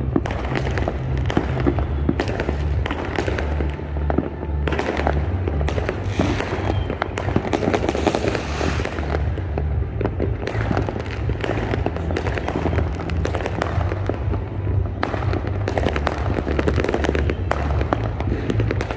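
Fireworks display going off continuously, with dense, overlapping bangs and crackles throughout.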